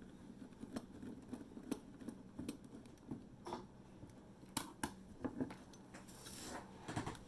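Faint, irregular small clicks and taps of hands and tools working the USB bridge board on a bare 3.5-inch hard drive, with a brief scraping rustle about six seconds in.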